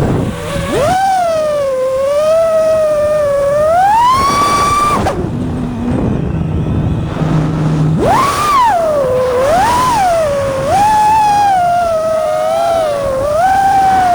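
Five-inch FPV quadcopter's brushless motors and tri-blade props whining, the pitch rising and falling with the throttle. About five seconds in the pitch falls away to a low hum for about three seconds, as in a throttle-off flip or dive, then jumps back up and keeps swooping.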